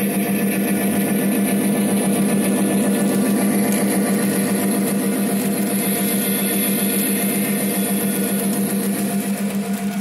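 Model passenger train with a streamlined diesel locomotive running past, giving a steady engine-like hum. The level pulses lightly, more quickly near the end.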